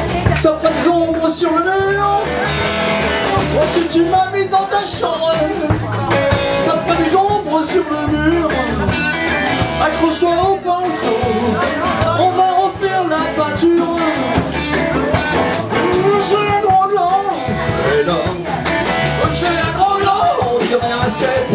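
Live rock band playing an instrumental stretch: electric guitars with a wavering lead line over bass and drums.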